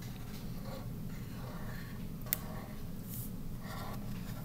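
Felt-tip marker drawing curved petals on paper held on a clipboard: faint scratching and squeaking strokes over a steady low hum, with one sharp click a little past halfway.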